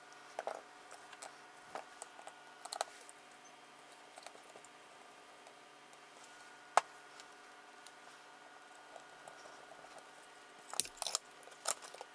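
Small clicks and taps of screws and carbon-fibre drone frame parts being handled, with one sharp click about seven seconds in and a quick flurry of clicks near the end.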